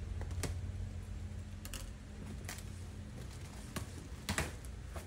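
Cardboard shipping box being opened by hand: a few scattered sharp clicks and rustles of flaps and contents being handled, the loudest a little past four seconds in, over a low steady hum.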